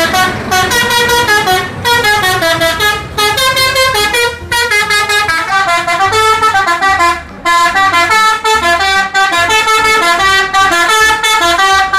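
Tour bus's multi-tone musical horn, an Indonesian 'telolet' horn, playing a fast tune of stepped notes in short phrases with brief breaks between them.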